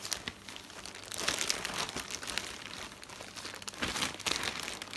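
White plastic mailing bag crinkling and rustling in irregular bursts as it is handled and pulled open, loudest about a second in and again near the four-second mark.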